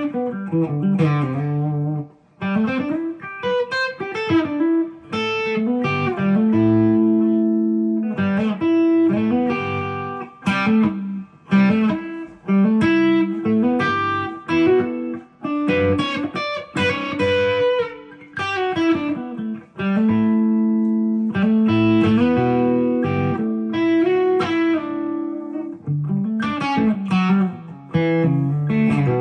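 Epiphone Les Paul Custom electric guitar played as a sound sample: picked single-note lines and ringing chords, with a short gap about two seconds in.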